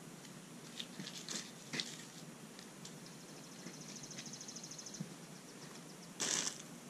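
Soft rustling and scattered clicks of hands working soil and plants in a mulched flower bed. A rapid, even, high ticking trill runs through the middle. Near the end comes a louder crunching rustle as a boot steps into the mulch right beside the microphone.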